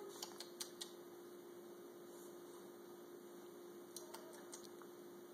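Near silence: a faint, steady hum, with a few faint clicks in the first second and again about four seconds in.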